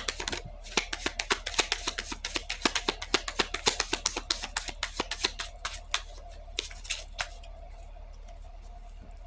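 A deck of cards being shuffled in the hands: a quick run of crisp flicks and rustles that stops about seven seconds in, leaving a faint steady hum.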